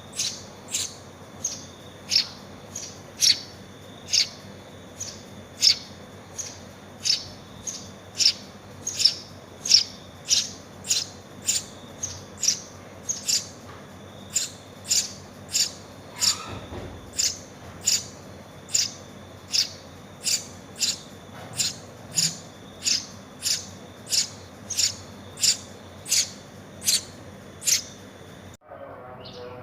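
Eurasian tree sparrow nestling giving short, shrill begging chirps over and over, about one and a half a second, as it is hand-fed. The calls stop abruptly near the end.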